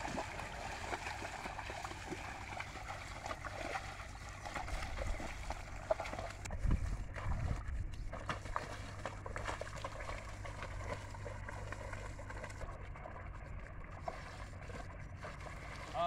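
Muddy water sloshing and splashing as a pair of bullocks drag a wooden plough through a flooded paddy field, with faint voices in the background.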